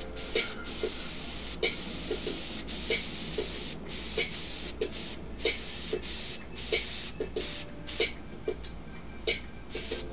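Airbrush spraying acrylic paint: a high hiss of air that starts and stops many times in short bursts as the trigger is worked.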